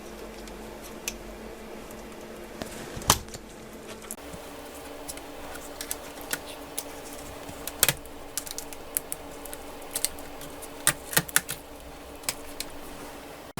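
Scattered small clicks and taps of tools and plastic laptop parts being handled during disassembly, irregular and sharp, over a steady low hum.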